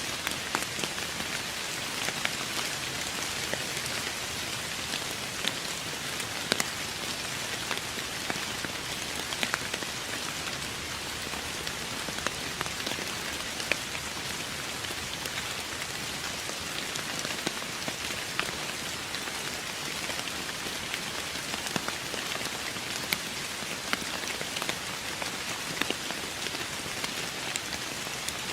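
Steady rain falling on a surface, an even hiss of rainfall with many individual drops ticking sharply throughout.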